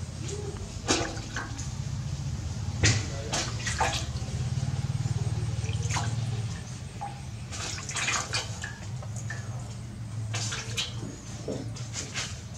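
Water splashing and dripping in a large aluminium basin as hands dip and rub a small body in it, in short irregular splashes over a steady low hum.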